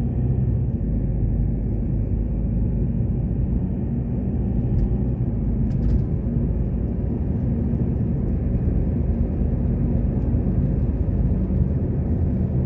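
Steady low rumble of a Volvo V60 driving at road speed, heard inside the cabin: tyre and road noise on asphalt with the engine's hum underneath.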